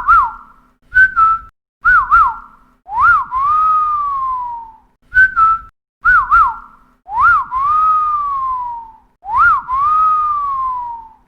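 Whistling in a repeating pattern: quick two-note whistles alternate with longer whistles that rise sharply and then slide slowly downward over about two seconds. Each phrase starts with a sharp click.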